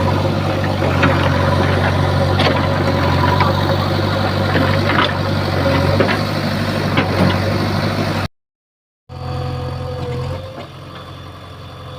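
Diesel engine of a JCB 3DX backhoe loader running steadily, with scattered metallic knocks. It cuts out briefly after about eight seconds, then comes back and drops in level near the end.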